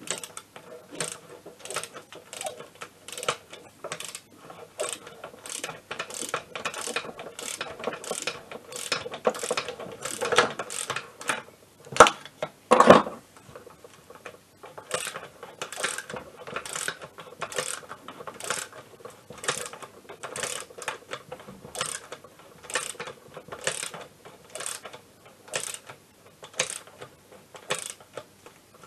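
Socket ratchet wrench clicking as a bolt is tightened on a scooter engine case: a regular run of ratchet clicks, about two a second, with two louder knocks about twelve seconds in.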